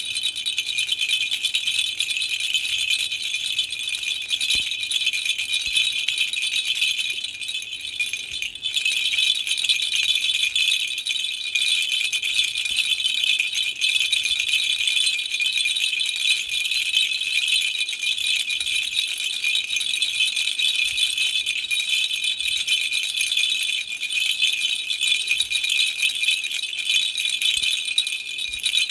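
Baby rattle shaken without pause, a dense, steady, high jingling rattle that eases briefly about seven seconds in.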